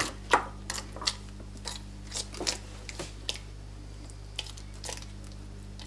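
Silicone spatula pressing and scraping thick tomato sauce through a stainless steel conical strainer (chinois): irregular soft clicks and scrapes against the perforated metal, over a steady low hum.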